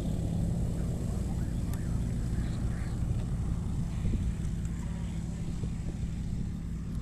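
Light single-engine propeller tow plane running at takeoff power, pulling a glider along a grass runway on an aerotow launch: a steady low engine drone that grows slightly fainter as the pair roll away.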